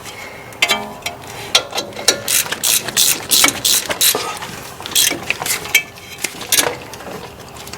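Ratchet wrench clicking in irregular runs of short strokes as a brake caliper bolt is tightened.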